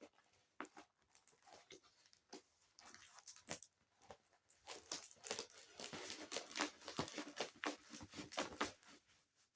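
Faint tearing and crinkling of packaging being opened by hand: scattered crackles at first, then a denser run of rustling from about five seconds in until near the end.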